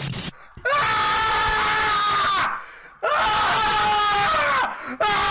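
A man's anguished, wordless screaming in three long, drawn-out yells, each held for about two seconds. It is a football fan's howl of despair as his team concede a second goal.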